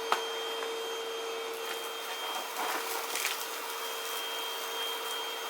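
Cordless stick vacuum cleaner running steadily while it sucks up dirt, its motor giving a steady hum with a high whine. A sharp click comes just after the start, and there is brief scratchy rattling about halfway through.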